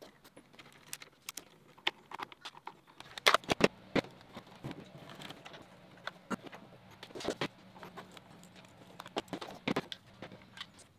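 Plastic parts of an airsoft rifle and hand tools being handled on a workbench: irregular clicks, taps and knocks, with a quick run of louder knocks about three to four seconds in.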